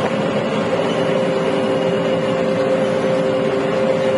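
Combine harvester running steadily while cutting wheat: an even machine drone with two steady held tones.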